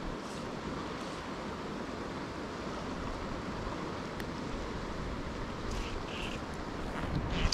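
Steady rush of a mountain river flowing over a rocky bed, an even hiss with no breaks.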